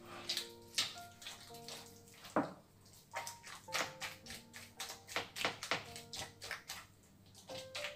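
Silicone spatula beating egg into thick cooked churro (choux-type) dough in a glass bowl: irregular wet, sticky slaps and squelches, about two or three a second. Soft background music with held notes plays underneath.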